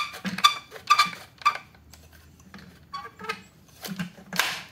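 Hard plastic parts of a Ryobi 40V jet fan blower being handled: the orange impeller and clear plastic fan housing clicking and knocking together as the fan is worked into line in its housing. A quick run of light, slightly ringing clicks comes in the first second and a half, and a longer scrape comes near the end.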